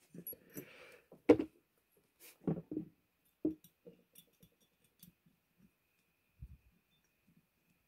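Small metal tools handled on a workbench: a handful of clicks and knocks as a hex key is picked up and fitted into a red dot optic's mounting screw, the loudest about a second in. Fainter ticks follow as the screw is turned.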